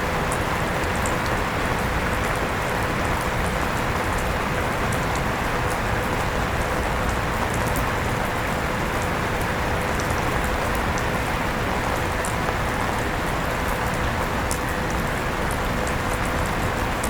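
Steady rain falling, with scattered light drop ticks, together with an electric fan running with a thin steady hum.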